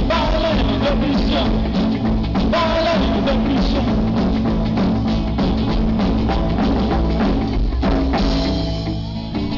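Live rockabilly band playing: double bass, acoustic and electric guitars and a drum kit keeping a steady beat. The sound thins out in the last second or so.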